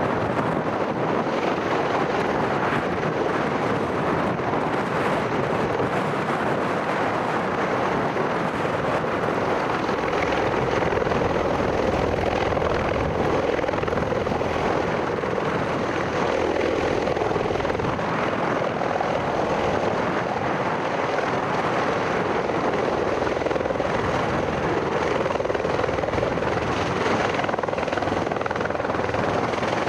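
V-22 Osprey tiltrotor's rotors and engines running, a loud, steady rotor drone.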